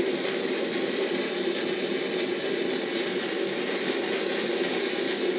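Handheld gas kitchen blowtorch burning steadily on a low flame, a constant hissing rush, as it caramelizes a thin layer of brown sugar on crème brûlée.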